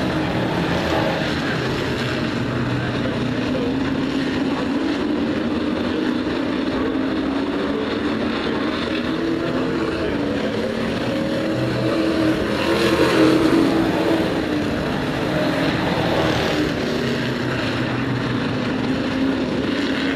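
A pack of short-track racing pickup trucks running at race speed, several engine notes overlapping and shifting in pitch as they lap the oval. It grows louder about two-thirds of the way through as the pack comes by closer.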